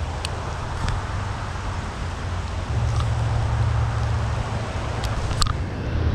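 Steady rain with wind rumbling on the microphone; the rumble grows louder a little under halfway through. A few sharp ticks sound over it, the clearest near the end.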